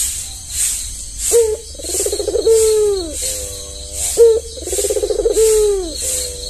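Albino Barbary dove (puter) cooing twice: each call opens with a sharp rising note, rolls into a trill and ends in a long falling coo. A high rhythmic pulsing, about one and a half beats a second, runs underneath.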